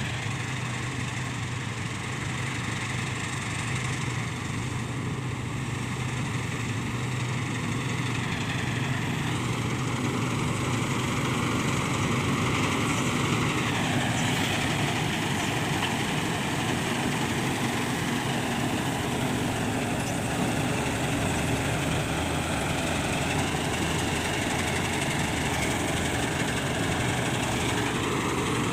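Diesel engine of heavy farm machinery running steadily under load, with a mechanical whine that drops slightly in pitch about halfway through.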